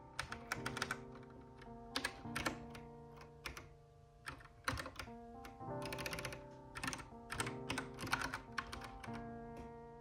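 Typing on a Kinesis Advantage 360 Pro split, contoured mechanical keyboard: quick runs of repeated keystrokes for Vim navigation, broken by short pauses. Soft background music with sustained chords plays underneath.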